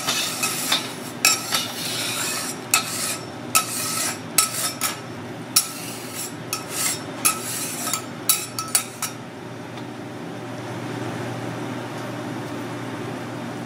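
Metal spatulas clanking and tapping on a steel teppanyaki griddle in a quick, irregular run of sharp, ringing clinks. The clinking stops about nine seconds in. Underneath, a steady sizzle comes from the steak and water steaming under a copper dome cover, with a low hum.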